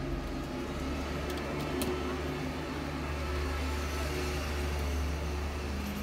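Steady low mechanical hum, like a fan or air conditioner running, with a few faint clicks about one and a half to two seconds in.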